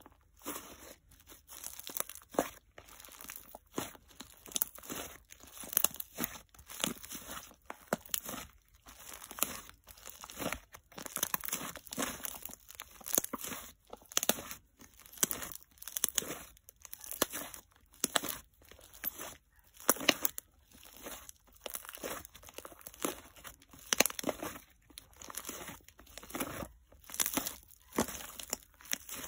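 Soft, fluffy DIY clay slime (clear slime mixed with clay) being squeezed and stretched by hand. It gives off bursts of crackly, crunchy clicks, roughly one burst a second, as air trapped in the slime squishes out.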